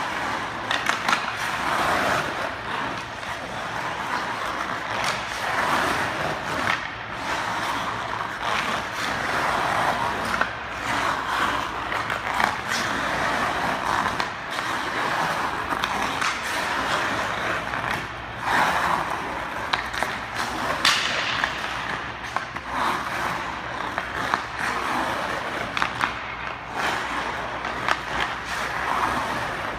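Ice hockey skate blades carving and scraping the ice through repeated tight turns, the scrape swelling and fading with each turn, with occasional sharp taps of the stick on the puck.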